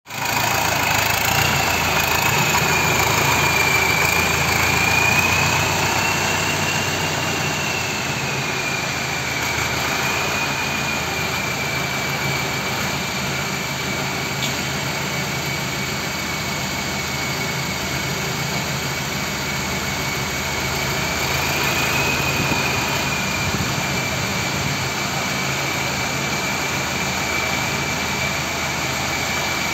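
Compact farm tractor's diesel engine running steadily as it drives, with a high whine over it that rises and falls slightly in pitch.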